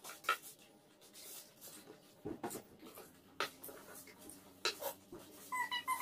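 Cutlery clicking and scraping on plates at a meal table, in scattered sharp clicks. Near the end comes a short, high-pitched wavering call that falls in pitch.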